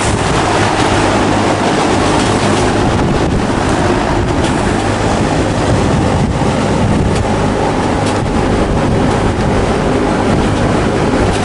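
Wind buffeting the microphone, loud and steady, with a low steady hum underneath.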